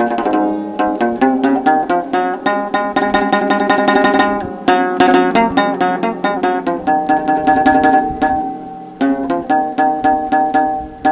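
Handmade plucked string instrument playing a melody in quick, repeated plucked notes over a steady low drone.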